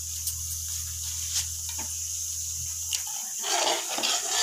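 Masala sizzling steadily in oil in an aluminium pot, with a few light ladle clicks. About three and a half seconds in, the metal ladle starts stirring a spoonful of yogurt into the masala, an irregular, louder stirring noise. A low hum under the first three seconds stops.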